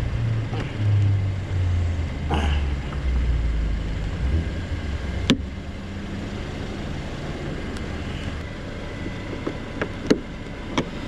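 Hood latch on a Jeep Wrangler being worked by hand: one sharp click about halfway through and several small clicks and taps near the end, over a low rumbling noise in the first half.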